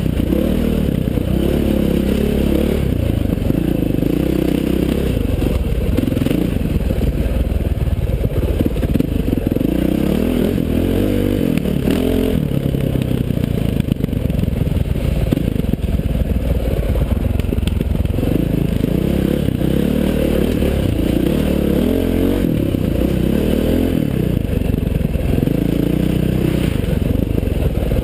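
KTM 530 XC-W's single-cylinder four-stroke engine running under load on a dirt trail, its revs rising and falling as the throttle is worked.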